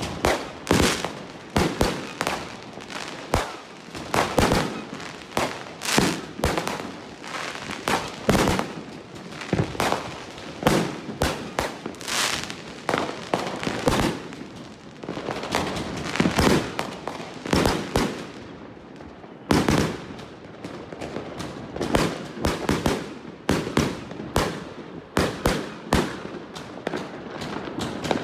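Triplex YHW901 firework firing shot after shot. Each shot gives a sharp bang, and the bangs come irregularly, several a second at times, with crackle in between.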